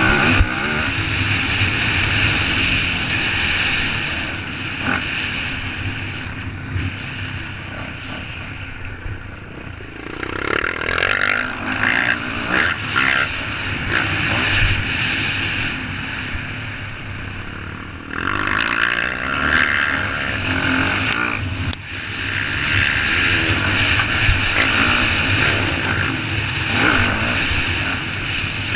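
Dirt bike engine ridden hard, revving up and easing off over and over as the throttle opens and closes, heard from a camera mounted on the bike with a steady rushing hiss.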